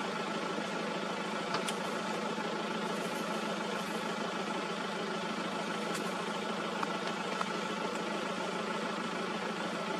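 Safari vehicle's engine idling steadily, with a few brief clicks.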